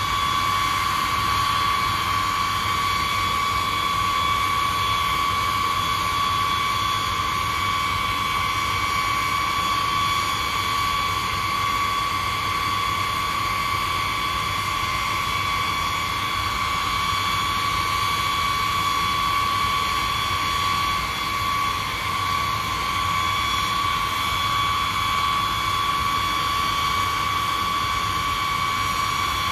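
A B-52H bomber's eight TF33 turbofan engines running at idle power: a steady high-pitched whine over a broad rush of jet noise.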